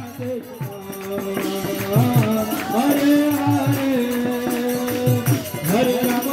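Devotional kirtan: voices singing a chant over a steady drum beat, with hand clapping and small percussion. The music dips for a moment at the start and comes back up about a second and a half in.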